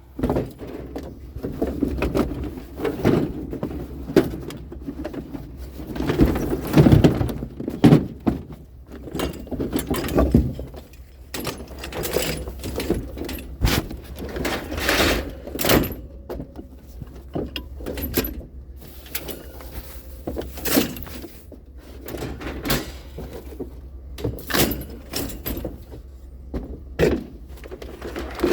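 Objects being handled and moved, with repeated irregular knocks, clicks and rattling.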